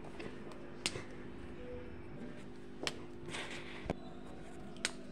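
A few short, sharp clicks and a brief rustle from a purple marker being handled in the fingers, over a steady faint hum.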